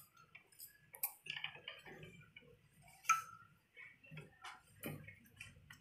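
Cloth strips being handled and set in place at a hand-wheel sewing machine: light rustling with a few small, irregular clicks, the sharpest about three seconds in.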